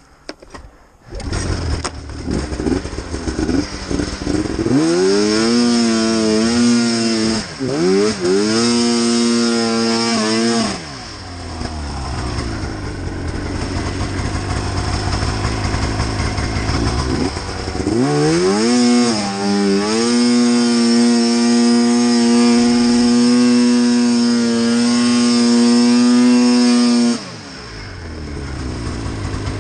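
Arctic Cat two-stroke mountain snowmobile stuck in deep powder, its engine revved hard to spin the track and dig free. The engine comes up about a second in, rises and is held high, drops back, then is revved and held high again for several seconds before falling off and stopping near the end. Snow is thrown from the spinning track.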